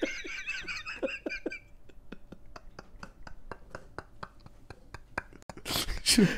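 Men laughing helplessly, mostly in near-silent wheezing laughter: a run of faint, rapid breathy pulses, several a second, that breaks into a louder breathy burst of laughter near the end.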